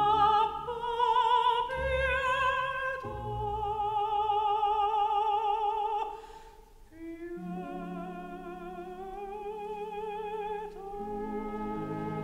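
Slow music: a high melody line holding long notes with wide vibrato, each about three seconds, over sustained low notes. It drops away briefly about six seconds in, then resumes.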